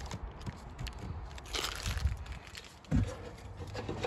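Handling noise: faint rustling and small clicks, with one dull thump about three seconds in.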